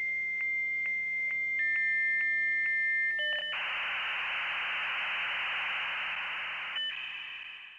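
Dial-up modem connecting: a steady high answer tone clicking about twice a second, a step down in pitch, two short beeps, then about three seconds of loud hissing screech before it settles into steady tones again.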